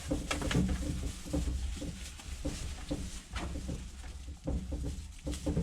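Potbelly pigs grunting softly, with short rustles and knocks throughout.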